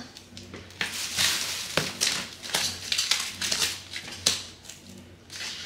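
Cardboard shipping box being pulled and torn open by hand, without a cutter: a run of irregular scraping and tearing noises with a few sharp clicks.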